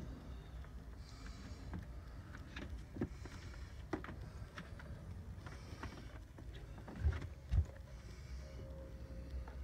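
Handling noise of a handheld camera carried through a boat cabin: a low rumble with scattered clicks and knocks, and two louder thumps about seven seconds in.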